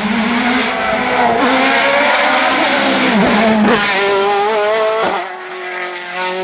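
Race car engine running hard at high revs, its pitch dipping and climbing again around three seconds in. About five seconds in the sound changes abruptly and becomes quieter.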